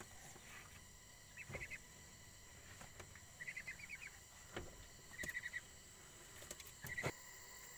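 Ducks giving soft, high trilling chatter in four short bursts over a steady drone of crickets and insects, with a few faint knocks.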